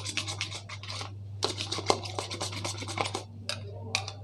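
A metal palette knife stirs and scrapes white glaze around a small plastic bowl in quick repeated strokes. There are two fast runs in the first two seconds, then a few single scrapes.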